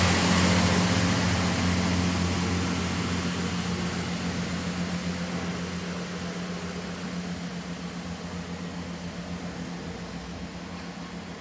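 GWR Networker Turbo diesel multiple unit pulling away, its steady engine drone and wheel-on-rail hiss fading as it recedes.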